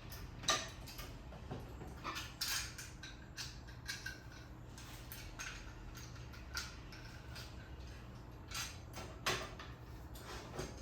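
Scattered clicks, knocks and light metallic clinks as metal parts of a miter saw stand are handled and fitted together, with a steady low hum underneath.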